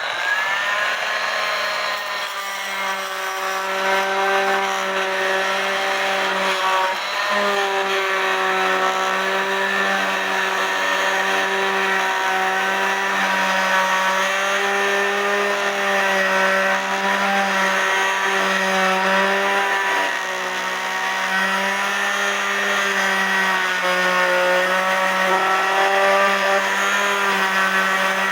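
Oscillating multi-tool starting up and running steadily, its blade vibrating back and forth as it works a glued-in cuckoo clock bellows loose; the motor's hum wavers slightly in pitch.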